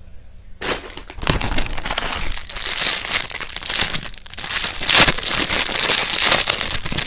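Clear plastic packaging around a squishy toy crinkling and rustling as it is handled, starting about half a second in with many sharp crackles.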